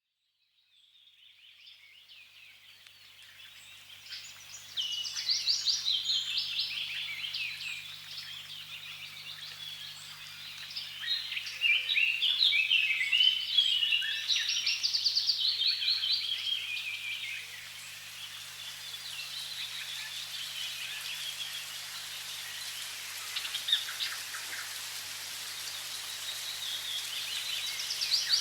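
Many small birds chirping and singing over a steady hiss of running water, rising from silence in the first few seconds. The bird song is busiest in the middle and picks up again near the end, over a faint low steady hum.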